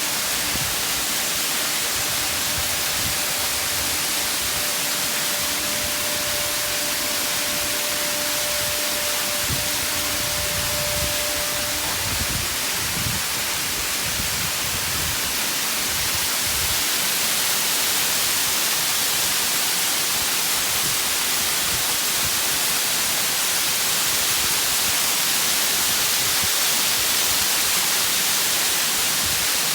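A large waterfall makes a steady rush of falling water throughout. Under it, the last faint ringing tone of a Singing Ring, a Japanese singing-bowl instrument, fades out about a third of the way through.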